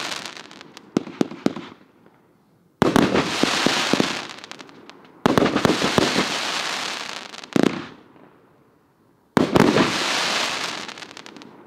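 Aerial firework shots bursting overhead. Each goes off with a sudden bang, then a dense crackle that dies away over about two seconds. New shots break about 3, 5 and 9 seconds in, with a few separate pops between them.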